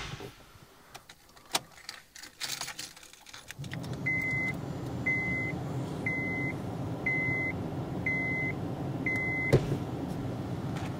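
A few scattered clicks. About three and a half seconds in, the Honda Civic Type R starts running with a steady low hum. With reverse gear selected, its reverse-gear warning beeps six times, a short high tone about once a second, and the beeping ends with a knock near the end.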